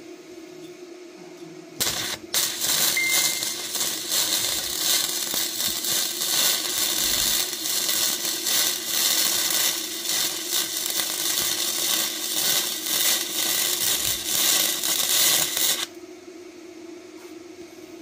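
MIG welder laying a bead with gasless flux-core wire. The arc starts about two seconds in, crackles steadily and densely for about fourteen seconds, then stops abruptly.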